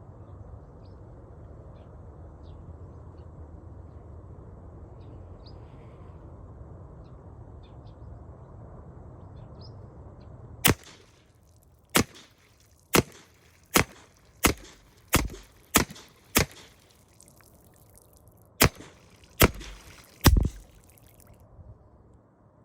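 Edgun Fenix PCP air rifle fired eleven times in quick succession, each shot a sharp crack, about one every half-second to one second with a short pause before the last three. Before the shooting there are about ten seconds of steady low background noise with faint high chirps.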